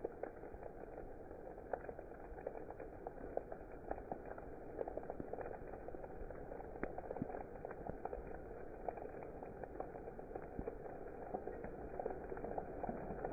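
Steady rainfall, with many separate drops ticking sharply over a constant hiss.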